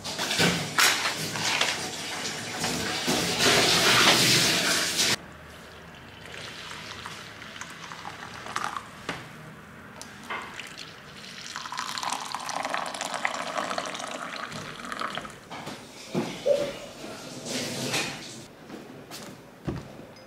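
A loud rushing, water-like noise for about five seconds that cuts off suddenly, then coffee poured from a stovetop moka pot into ceramic mugs for a few seconds, and the mugs knocked lightly as they are set down.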